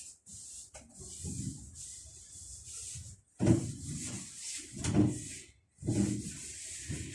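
Cloth soaked in cooking oil rubbing over a wooden kitchen cabinet in wiping strokes. The rubbing comes in three stretches with brief pauses between them.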